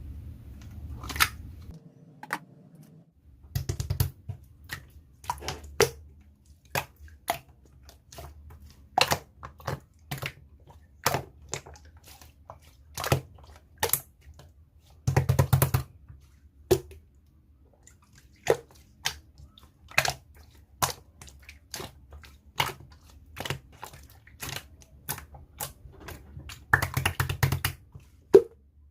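Slime being pressed and worked by hand, making sharp irregular pops and clicks about once a second, with three longer stretches of dense squishing.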